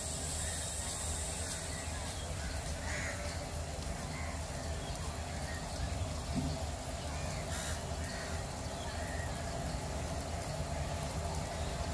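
Crows cawing now and then over faint distant voices and a steady low hum.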